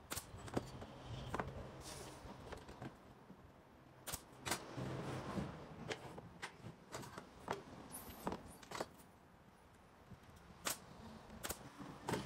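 Scattered sharp clicks and wooden knocks as a cabinet box is put together with a pneumatic brad nailer: nailer shots and panels being handled and set on the bench, over a low steady hum.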